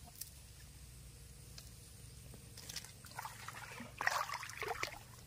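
Water splashing and trickling in short, irregular bursts, starting about halfway in and loudest near the end.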